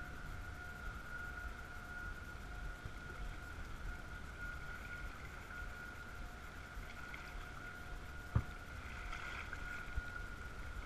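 Steady low rumble of wind and water around a small boat, under a thin steady whine. A single sharp knock comes about eight seconds in, and a smaller click a little later.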